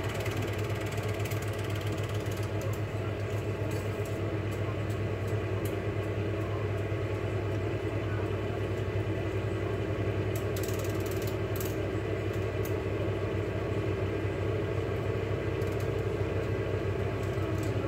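Cine film projector running: a steady, fast mechanical clatter from the film-advance mechanism over a constant low hum.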